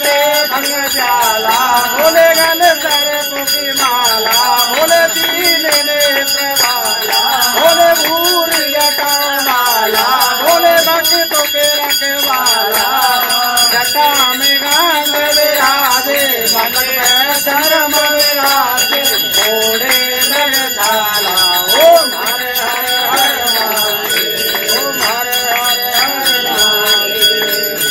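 Devotional chanting sung by voices, with small bells ringing continuously over it and a quick rhythmic clatter of percussion.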